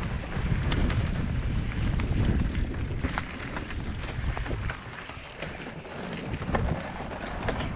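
Mountain bike descending a dirt singletrack: wind buffeting the microphone over a low rumble of the tyres on the trail, with scattered sharp clicks and rattles from the bike. The rumble is heaviest for the first few seconds and eases a little after about five seconds.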